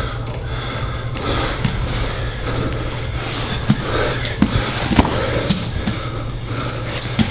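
Thuds and slaps of grapplers' bodies and hands striking the training mats during a no-gi jiu-jitsu roll, with a handful of sharp ones in the second half, over a steady low hum.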